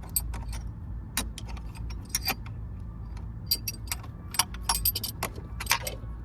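Small metal tools clinking and clattering in irregular clicks as they are picked through and tried for size on a battery post nut, over a steady low rumble.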